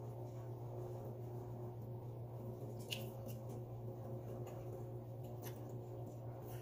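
Faint eating sounds of a person eating chicken by hand: chewing and small sticky clicks, one a little sharper about three seconds in, over a steady low hum.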